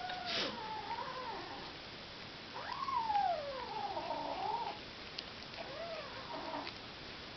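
A kitten making low, drawn-out yowling growls with wavering pitch, three times: one at the start, a long one in the middle, and a shorter one about six seconds in. It is guarding a piece of broccoli against being taken away.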